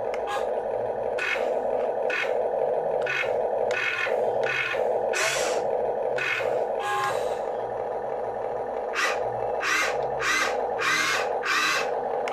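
Huina 1592 RC excavator's electric motors whirring in a dozen or so short, irregular bursts, each sometimes bending in pitch, as its bucket, arm, boom and turret are driven, over a steady hum.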